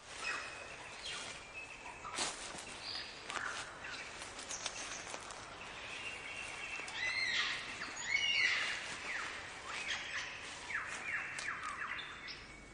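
Birds singing and calling in a chorus of overlapping whistles, chirps and clicks, with a run of repeated downward-sweeping calls in the second half, busiest about seven to nine seconds in.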